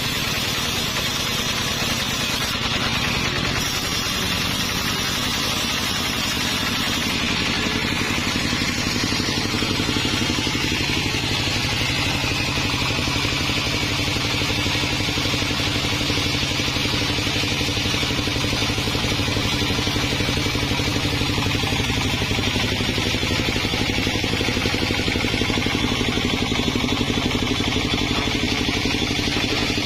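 Sawmill engine running steadily, with no break or change in its note.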